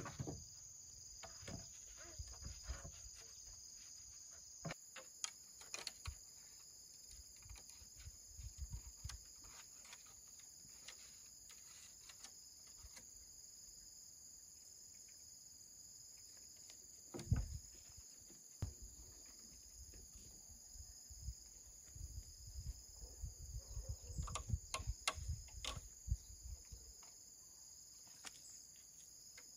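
A steady, high-pitched insect chorus runs under scattered light knocks and clicks. A louder thump comes about seventeen seconds in, and a quick run of knocks comes toward the end.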